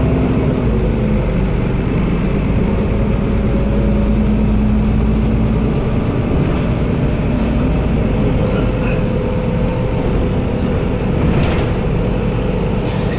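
Van Hool NewA330 city bus heard from inside the passenger cabin while driving: a steady low rumble of engine, drivetrain and road, with a faint whine that dips slightly in pitch about a second in.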